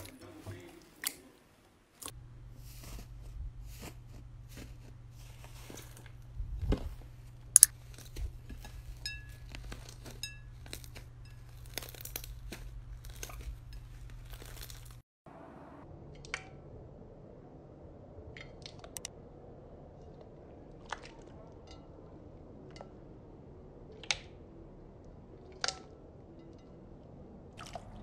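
Slime being squeezed and poked, giving crunchy crackles and small pops. The sound changes abruptly about halfway through, after which the crackles come more sparsely.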